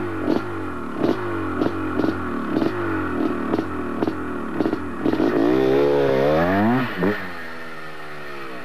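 KTM enduro motorcycle engine running at a standstill, revved in short repeated blips about twice a second. About five seconds in it is held in a longer rising rev, then drops back to a lower, steadier idle.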